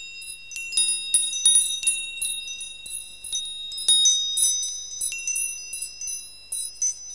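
Metal chimes tinkling: many high, bright notes struck at irregular moments, each ringing on and overlapping the others, over a faint low hum.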